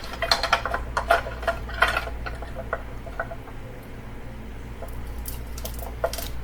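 Light clicks and taps of plastic and metal parts being handled as the LCD screen of an 8.4-inch Uconnect head unit is seated and shifted in the radio's frame. The clicks come thick in the first two seconds, then sparse, with a few more near the end.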